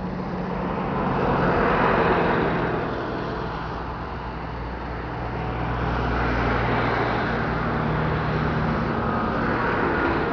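Boeing 767's twin turbofan engines at take-off thrust as the airliner lifts off and climbs away. The jet noise swells to a peak about two seconds in, eases briefly, then holds steady and loud.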